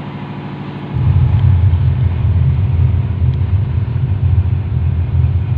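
Subwoofer in a custom box playing a loud, low bass test signal for a frequency-response measurement, starting suddenly about a second in.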